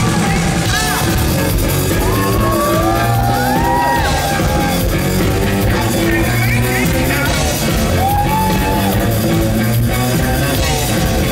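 Live rock band playing a song with a steady beat, a singer's voice sliding over it, heard in a large concert hall.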